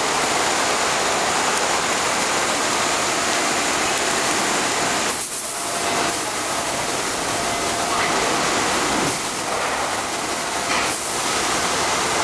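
Blown-film extrusion line running: a steady rushing noise like blowing air, with a faint high whine.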